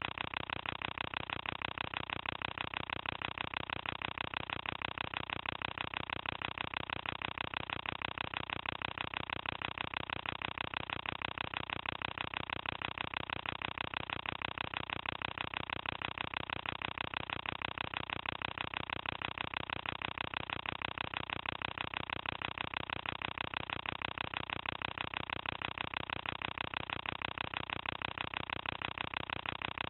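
Cine film projector running, a steady, rapid, even mechanical clatter.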